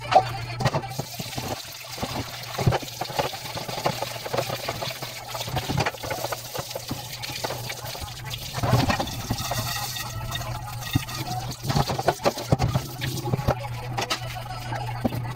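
Tap water splashing into a stainless-steel sink while a metal pot is rinsed, with scattered knocks and clinks of cookware against the sink.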